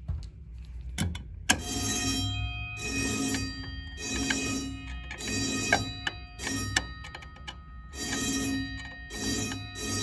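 A fire alarm pull station is pulled with a sharp mechanical click about a second in. Within half a second the system's Edwards 439D fire bells start ringing loudly in repeated on-and-off pulses of under a second each.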